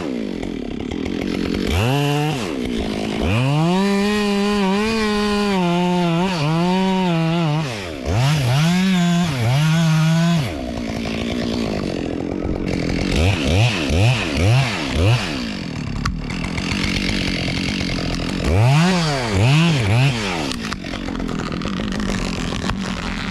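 Chainsaw revving up and down as it cuts through an oak trunk, making a felling cut. About halfway through there is a run of quick short throttle blips.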